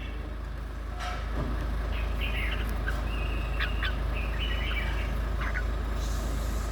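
Red-whiskered bulbuls giving short chirps and whistled notes several times, fairly soft, over a steady low hum.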